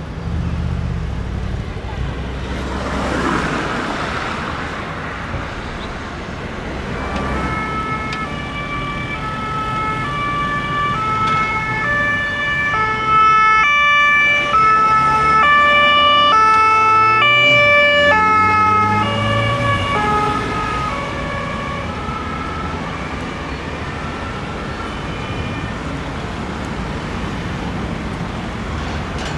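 Emergency vehicle's two-tone siren alternating between a high and a low note, growing louder as it approaches, loudest in the middle, then fading as it drives away. Its engine is heard rising as it passes, and a vehicle goes by a few seconds before the siren begins.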